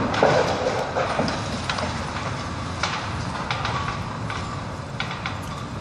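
Demolition noise from a brick building coming down: a steady rumble with scattered clattering knocks of brick rubble and debris, the loudest knock just after the start.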